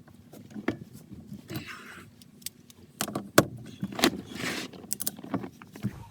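Metal clicks and knocks with short bursts of scraping from hand tools working the steering wheel's centre bolt, as it is tightened down onto the steering column.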